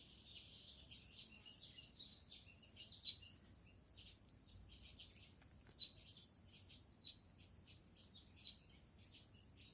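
Faint outdoor chirping: many short, high-pitched chirps from small birds or insects, scattered irregularly over a steady faint hiss.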